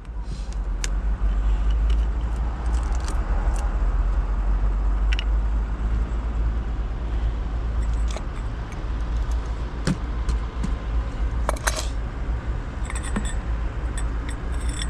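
Light clicks and short rattles of plastic and metal parts being handled and fitted while getting ready to pour engine oil, over a steady low rumble.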